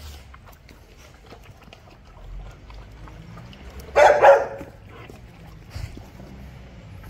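Doberman puppies eating from a steel bowl, with faint crunching and clicking throughout. A dog barks twice in quick succession about four seconds in, the loudest sound.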